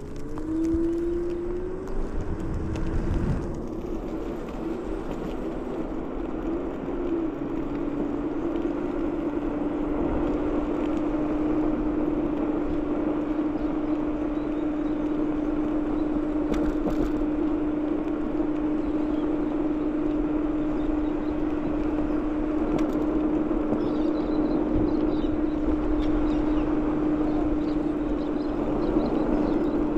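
Ninebot Max G30P electric scooter's hub motor whining at one steady pitch while cruising, over wind and tyre noise on the road. The pitch wavers during the first few seconds before settling, and there is a brief low rumble about three seconds in.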